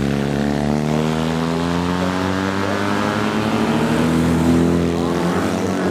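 Classic racing sidecar motorcycle engine accelerating, its pitch rising steadily for about five seconds.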